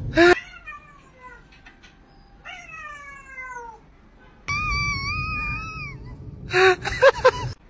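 Domestic cat meowing repeatedly: a loud short cry at the start, falling meows around one and three seconds in, one long held meow from about four and a half seconds, and loud short yowls near the end.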